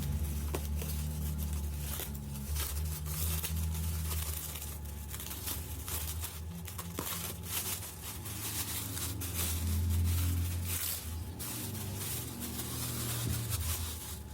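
Parcel wrapping being torn and crumpled by hand as a package is unwrapped, in irregular rustling bursts over a steady low hum.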